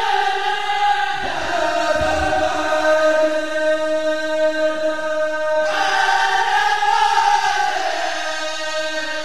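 A group of men's voices chanting together in long held notes that step to a new pitch every few seconds, a Mouride religious chant.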